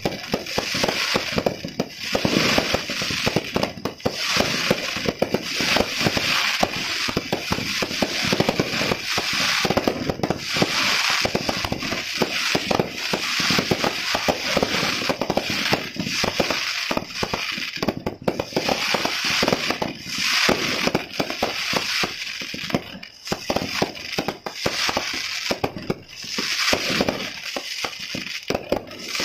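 Fireworks going off in a dense, unbroken barrage of rapid cracks and pops, with a rushing hiss that swells and eases every few seconds.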